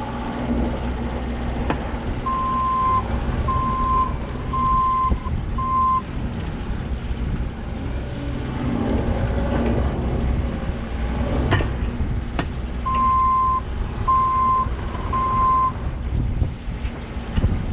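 Backhoe's diesel engine running steadily while its backup alarm beeps as it reverses: four even beeps, a pause, then three more. One sharp knock near the middle.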